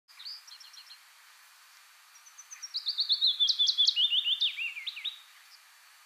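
Willow warbler singing: one song of quick notes that step down steadily in pitch over about three seconds, ending in a few slurred notes. A short run of high notes comes right at the start.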